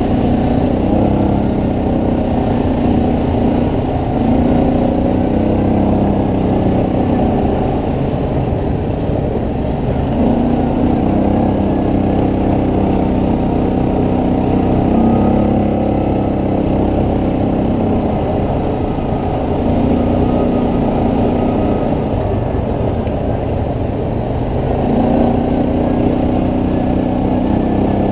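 ATV engine running under way, its note swelling and easing off in several stretches as the throttle is worked.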